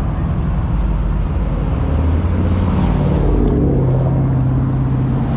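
Loud vehicle engine running, its pitch rising as it revs up about two and a half seconds in and then holding at the higher speed.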